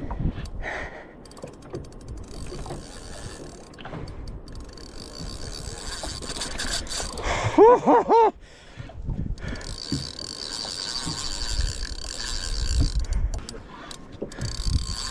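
Fishing reel ratcheting with fast, even clicks while a hooked fish is fought on the line, in two long stretches. About eight seconds in, three short rising-and-falling cries come in quick succession, the loudest sound here.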